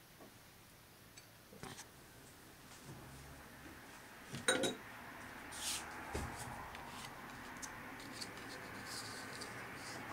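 Cutlery and ceramic plates clinking and tapping on a tabletop in a few scattered strokes, the sharpest clink about four and a half seconds in, followed by lighter taps.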